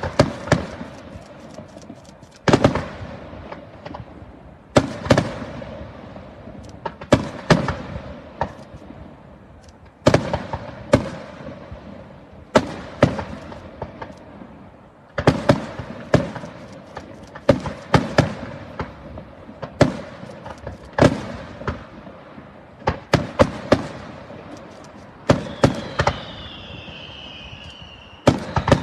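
Aerial fireworks shells bursting in a steady volley: sharp bangs every two seconds or so, often two or three in quick succession, each trailing off in an echoing rumble. Near the end a high whistle that dips in pitch joins the bangs.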